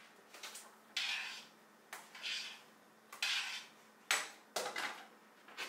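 Metal pots, pans and lids knocking and scraping on an electric stovetop in about five short bursts, roughly a second apart.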